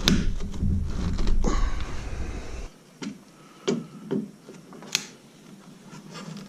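Close handling noise of a threaded plumbing fitting being worked by hand for Teflon-taping: rubbing and rumbling for the first few seconds, then a few light clicks and taps.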